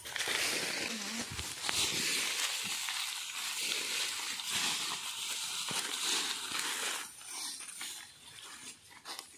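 Dry leaf litter crunching and crackling under footsteps, continuous for about seven seconds, then thinning to lighter rustling near the end.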